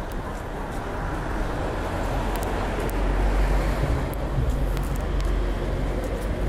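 Street traffic noise: car traffic passing along a town street, a low rumble that swells to its loudest about three seconds in, with scattered faint clicks.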